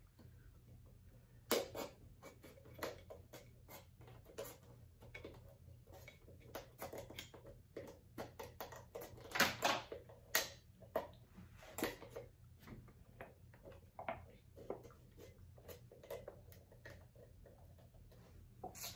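Scissors snipping and prying at hard plastic glue containers, with scattered clicks, scrapes and knocks as the containers are handled; a cluster of louder clicks comes about halfway through.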